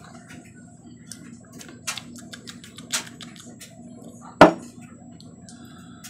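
A man hiccuping once, sharply and loudly, about four and a half seconds in: hiccups brought on by eating very hot sauce. Faint small clicks and ticks come before it.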